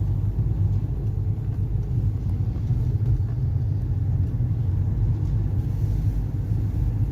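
Steady low rumble of a car's engine and tyres, heard from inside the cabin while the car drives on.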